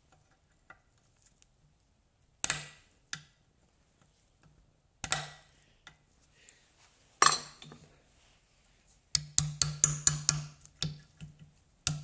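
Hand tools clinking and tapping on the metal cage of a worn rear hub bearing as it is broken out: a few single sharp metallic strikes with a short ring, then a quick run of about eight taps just past the middle.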